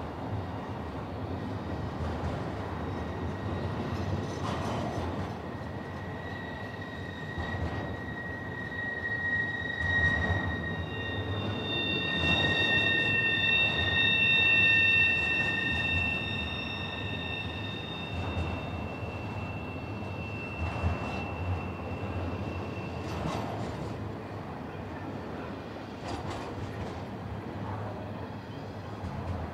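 Double-stack intermodal freight train rolling past: steady rumble and clatter of the steel wheels on the rails. From about six seconds in the wheels squeal in several high pitches at once, loudest around the middle, and the squeal dies away after about twenty-three seconds.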